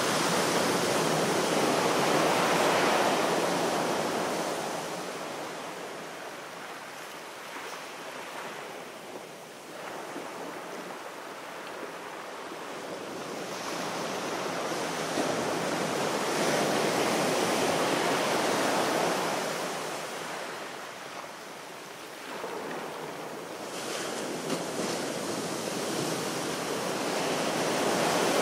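Sea waves washing onto a shore, the surf rising to a hiss and falling away in slow cycles about twelve seconds apart, three swells in all.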